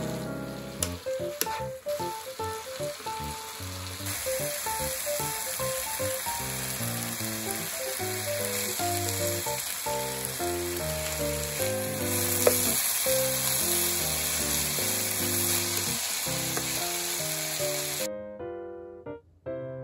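Shredded potato and carrot sizzling in hot oil as they are stir-fried in a pan, with a few light clicks. The sizzle cuts off about 18 seconds in. Light keyboard music plays throughout.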